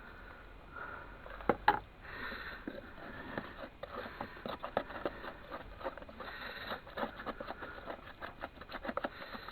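Wet furnace-lining mixture being pressed, patted and scraped into place by hand or tool: a couple of sharper knocks about one and a half seconds in, then a quick, irregular run of soft taps and scrapes.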